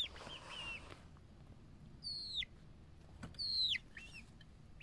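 Bird calls: short high calls that slide steeply down in pitch, one about two seconds in and two more past three seconds. Softer little arched chirps come near the start.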